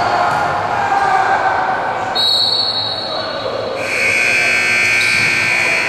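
Basketball game in a gym, with the ball bouncing on the court over a bed of spectator chatter echoing in the hall. A high, held tone comes in about two-thirds of the way through and lasts about two seconds.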